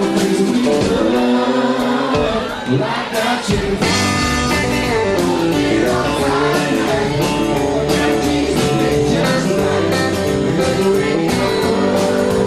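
Live country band playing, with singing over acoustic and electric guitars. The bass and beat get fuller about four seconds in.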